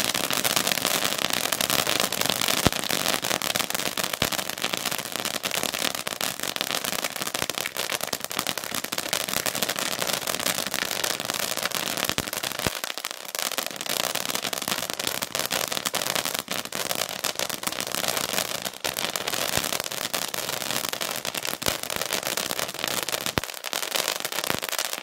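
Crackling fountain firework burning steadily: a continuous hiss of sparks over dense, rapid crackling pops.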